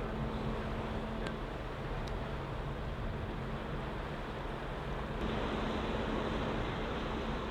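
Cruise ship Rotterdam passing close by: a steady low hum from the ship over an even rush of wind and water.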